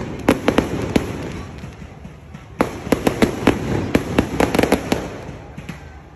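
Aerial fireworks bursting in volleys of rapid sharp pops: one cluster at the start, a short lull, then a longer volley from about two and a half seconds in that thins out toward the end.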